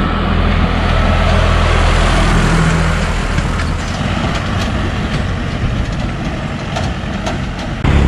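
Box truck's engine running close by as it passes, then fading about three seconds in, leaving road and wind noise.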